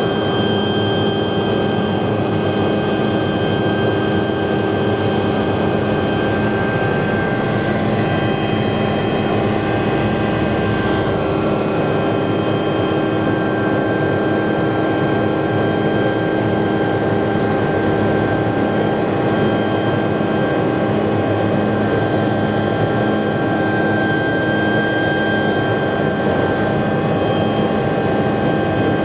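Hughes 500 helicopter's turbine engine and rotor heard from inside the cockpit, running steadily: a constant whine made of several fixed tones over a dense rushing noise.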